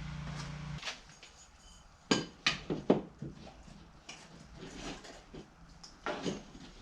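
A low steady hum that cuts off under a second in, then clinks and knocks of tools or hard objects being handled, in a quick cluster about two seconds in and again about six seconds in.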